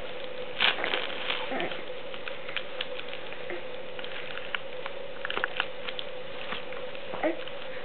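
Light, irregular scratching and tapping of a baby's hands on a fabric play mat, over a steady faint hum, with a couple of short soft vocal sounds.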